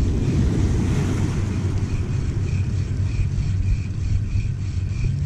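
Wind buffeting the microphone in a loud low rumble, over small waves washing across a rocky reef, with a faint high ticking about three times a second.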